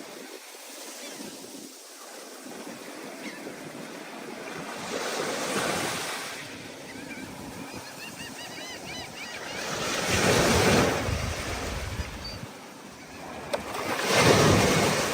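Stormy ocean surf: waves surging and breaking in three loud swells about four to five seconds apart, over a steady wash of water and wind. A run of faint high chirps sounds midway.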